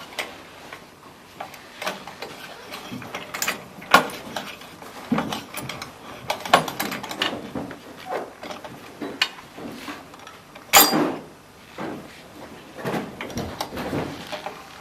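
Irregular metal clicks and knocks as the clamp holder assembly of a Babolat Sensor stringing machine is tightened with a wrench, the nut, washers and tool clinking, with a louder knock about eleven seconds in.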